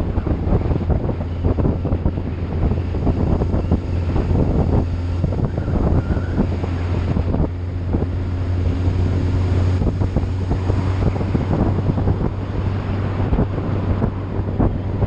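A vehicle engine running steadily at speed, with a constant low hum, under heavy wind buffeting on the microphone.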